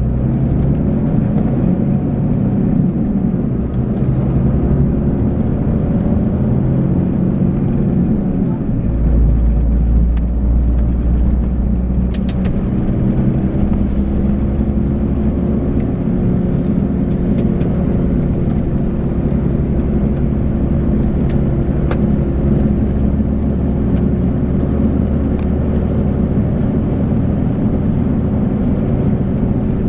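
Volvo B12B coach's 12-litre six-cylinder diesel engine running under way, its pitch dipping about eight seconds in and then holding steady, with a few sharp clicks.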